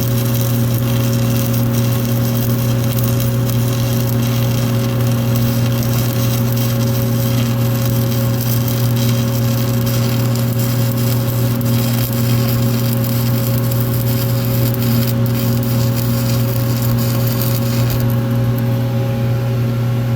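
Stick-welding arc burning a 7018 electrode: a dense, steady crackle over a constant low hum. The crackle stops abruptly about 18 seconds in, when the arc is broken, and the hum carries on.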